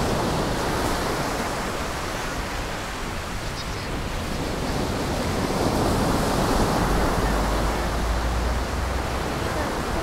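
Heavy surf of a stormy sea breaking on a sandy beach: a continuous wash of waves that swells about six seconds in as a larger wave crashes.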